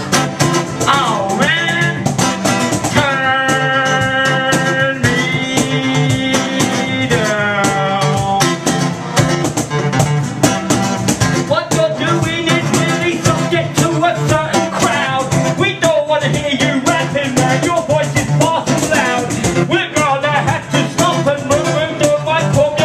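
Live music: a guitar played in a steady, driving rhythm with a man's voice into a microphone. The voice holds two long notes a few seconds in, then moves into quicker vocal phrases.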